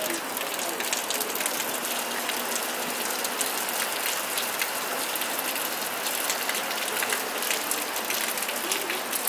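Steady heavy rain, an even hiss, with a dense rapid ticking of drops striking a hard surface close by.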